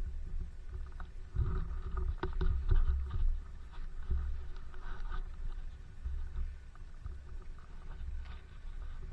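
Snowmobile riding a trail, heard from the sled: wind rumbling over the microphone with the engine running steadily underneath. There are a few sharp knocks and rattles from the machine about two seconds in.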